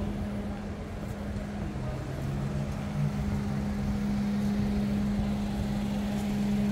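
A vehicle engine idling, a steady low hum over general city street noise.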